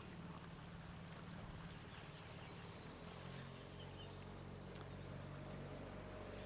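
Low, steady hum of a distant motorboat engine that shifts in pitch about three seconds in, with a few faint bird chirps.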